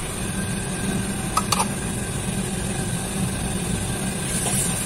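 Steady low roar of a restaurant wok station's gas burner and extractor hood, with a metal ladle clinking against the wok two or three times about a second and a half in.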